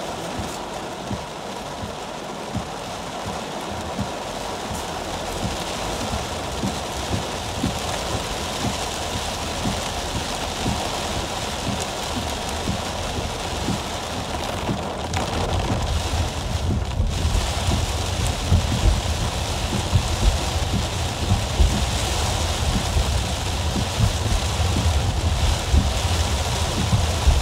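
Heavy rain falling on a car's roof and windshield, heard from inside the cabin as a steady hiss. A low rumble from the moving car grows louder a little past halfway through.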